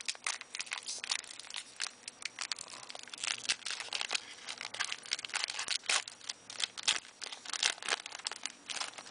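A Magic: The Gathering booster pack's foil wrapper being torn open and crinkled by hand, with a dense run of irregular crackles that stops near the end.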